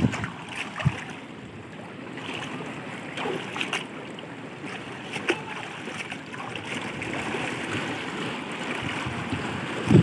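Small waves washing and trickling over shell-covered rocks, a steady wash of seawater with a few small splashes.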